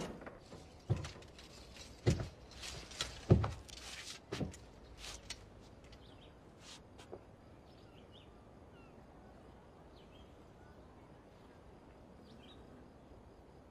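A handful of sharp knocks about a second apart over the first few seconds, the one just after three seconds the loudest. Then faint bird chirps over quiet room tone.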